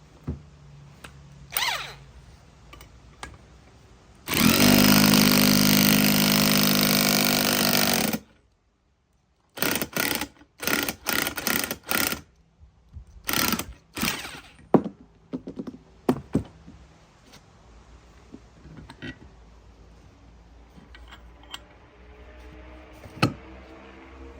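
A power tool runs steadily for about four seconds while a ball joint is worked into a van's steering spindle. Then, after a short gap, come a string of short bursts and sharp metal knocks and clinks.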